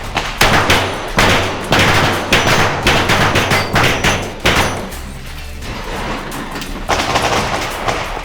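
A string of gunshots fired in quick succession, about two a second, pausing for a couple of seconds before a few more shots near the end, over background music with a steady bass.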